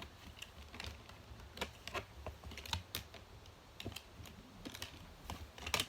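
Irregular light clicks and taps of small fidget toys being handled and put into a bin.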